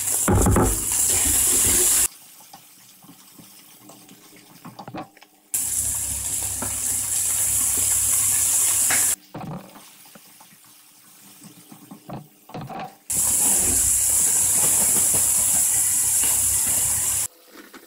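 Pork and bean sprouts sizzling in a hot frying pan as they are stir-fried with a wooden spatula. The loud sizzle comes in three long stretches that start and stop abruptly, with quieter gaps of light clicks and scrapes between them.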